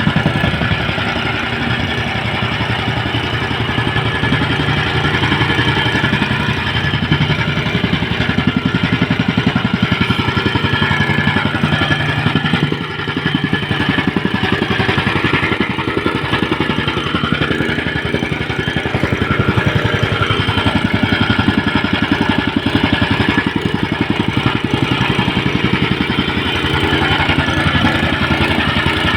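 A small engine running steadily at a constant speed, its firing heard as a rapid even chug.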